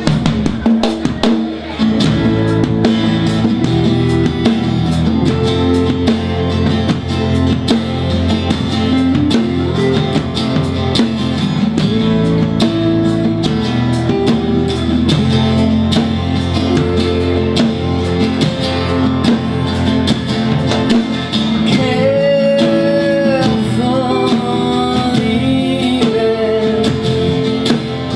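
Live band playing a song: strummed acoustic guitar with electric bass and drum kit, and a woman singing into the microphone.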